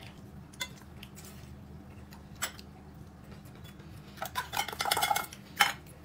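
Eating utensils clinking and scraping against a dish of food: a few scattered clicks, then a busier run of scraping and clinks about four seconds in, and a sharp clink just after.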